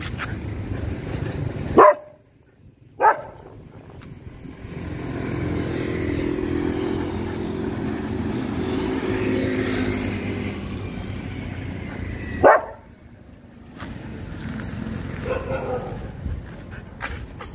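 A dog barks sharply three times: about two seconds in, again a second later, and once more past the middle. In between, a motor vehicle's engine hums past, swelling and fading over several seconds.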